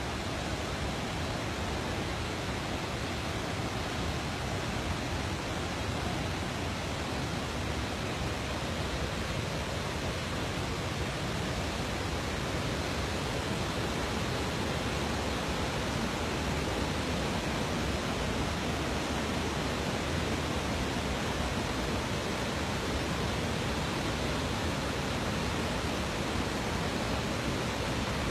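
Muddy river in flood rushing steadily over rocks, swollen by torrential rain.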